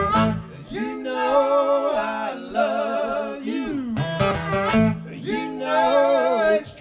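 Small country band playing: strummed acoustic guitar and electric bass under a lead melody of long, wavering held notes that slide down at the end of each phrase. The music breaks off suddenly near the end.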